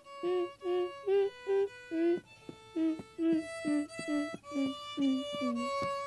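Violin melody of short, separate notes, about two or three a second, over a held higher note.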